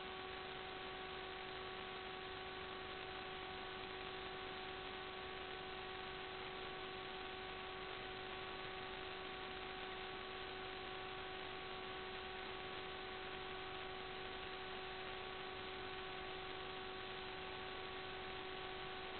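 Steady electrical hiss with a constant humming tone and its overtones, unchanging throughout: the noise of an analog FPV video link's audio channel, with no motor sound.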